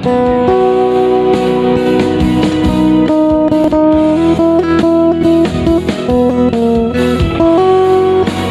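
Sape', the carved wooden boat-shaped lute of the Dayak of Borneo, plucked in a melody of single notes that ring on and overlap.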